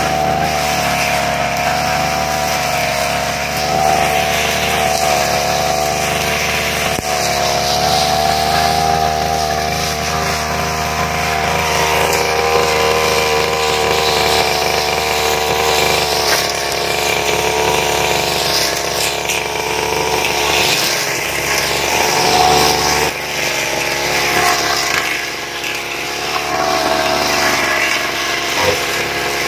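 Petrol brush cutter (grass-cutting machine) running at work speed, its engine pitch wavering up and down as it cuts through grass and undergrowth.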